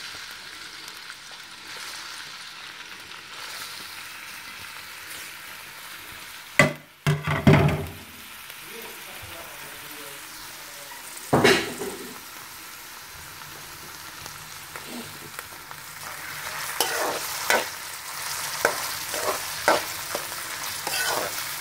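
Sliced onions sizzling in hot oil in an aluminium karahi, a steady hiss. A few sharp loud knocks and scrapes against the pan about seven and eleven seconds in, and a run of quicker ones near the end as the onions are stirred.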